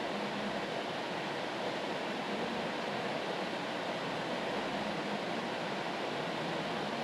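Steady rain white noise: an even, unchanging hiss with no separate drops or splashes standing out.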